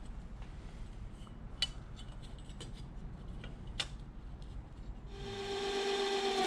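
A drill with an extra-long bit, about three feet, boring through a boat's wooden stem, giving a steady low grinding with two sharp clicks. Over the last second and a half a steady pitched hum grows louder.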